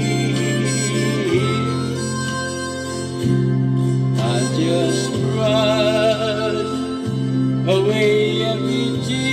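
Slow gospel song: steady bass and guitar backing, with a wavering lead melody that comes in about four seconds in and starts a new phrase near the end.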